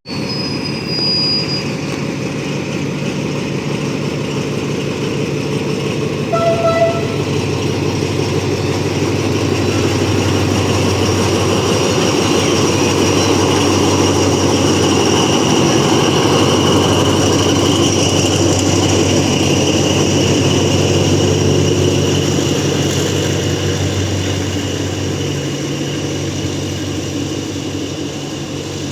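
TCDD DE 24000-class diesel-electric locomotive hauling a freight train past. Its engine runs with a steady low hum under the rolling wheel noise, which grows to its loudest about halfway through and then eases. A short horn blast sounds about six seconds in.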